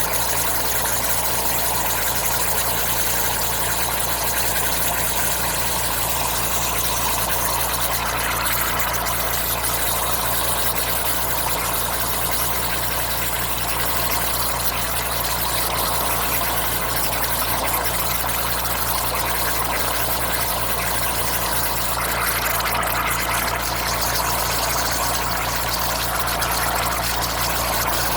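Steady hiss of water escaping under pressure from a leaking water pipe at the leak point, after a pressure test, with a steady low hum underneath.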